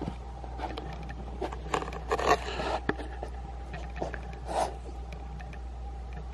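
A dog digging and nosing into its fleece bed, a run of fabric rustling and scratching. It is loudest in a burst about two seconds in, with a sharp click just after and another short rustle near the end.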